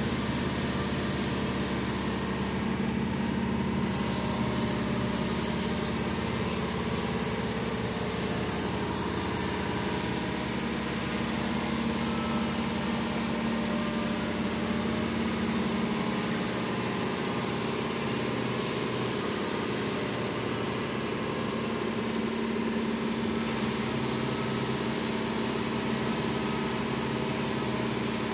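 Steady mechanical hum of a running machine, a constant low drone under an even hiss that briefly thins out twice.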